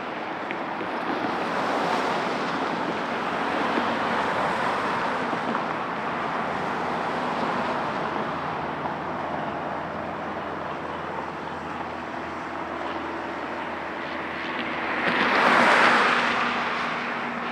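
Boeing 737-700 jet airliner landing: steady jet engine noise, swelling to its loudest near the end as the plane passes, then easing off.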